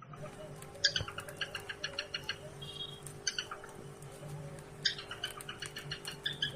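Cockatiel calling: three times a sharp, loud chirp is followed by a quick run of short repeated chirps. A steady low hum runs underneath.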